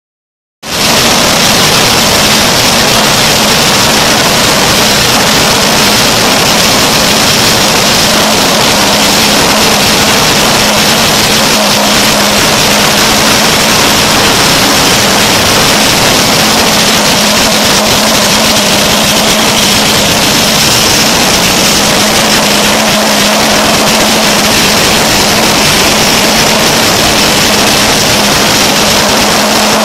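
Dry-mix mortar plant feeding machinery running: a loud, steady industrial din with a low hum and a high hiss.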